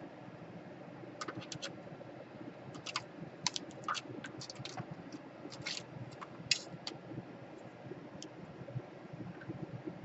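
Irregular sharp clicks and light taps of small plastic laptop parts being handled and pried apart, clustered between about one and seven seconds in, over a steady low hum.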